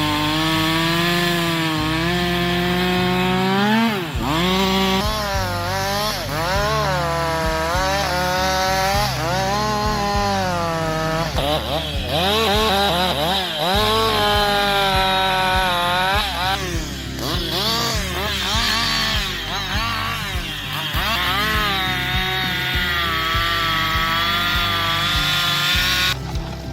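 Chainsaw engine cutting through wood, its pitch sagging under load and climbing back again and again as the chain bites and frees.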